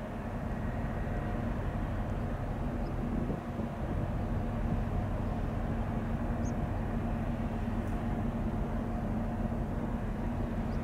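Steady low rumble and drone of a large LNG-powered container ship's machinery as it passes close by, with a few constant hum tones over a broad rumble.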